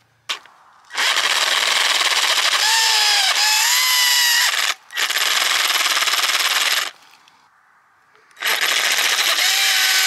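Ridgid 18-volt Gen5X cordless reciprocating saw with a brushed motor, its blade on a wooden stump, running in three bursts with a loud rattle and a motor whine that wavers in pitch. It stops twice, once briefly just before the middle and again for over a second, before starting up near the end: the saw is dying.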